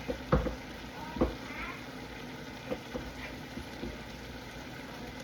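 Ground beef mixture sizzling in a pot while a utensil stirs it, knocking against the pot a few times, loudest in the first second or so.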